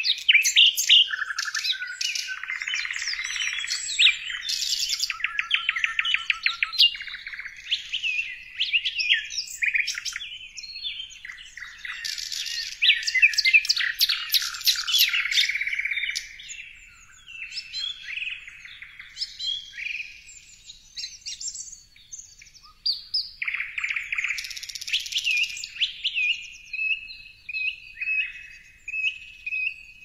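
Songbirds singing together: a busy mix of rapid chirp series, trills and whistled notes, thinning out to more spaced chirps after about halfway.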